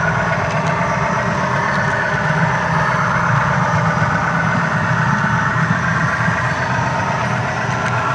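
Diesel locomotive engine running steadily, a constant low drone with a higher rumble on top.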